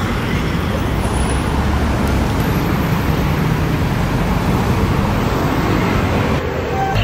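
Steady, loud road traffic noise from passing vehicles on a city street.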